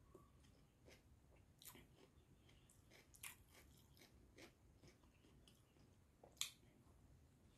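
Faint chewing and mouth clicks from a person eating an egg burger in a soft bun, with a louder bite about six seconds in.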